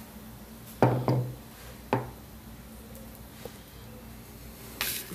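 Three dull knocks of kitchenware being set down or handled on a kitchen counter, two close together about a second in and a third about a second later, then a short scrape near the end.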